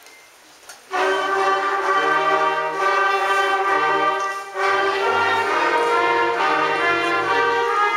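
School brass band, with trumpets, trombones and sousaphone, starts playing a Christmas medley about a second in after a quiet hush. There is a brief gap between phrases midway through.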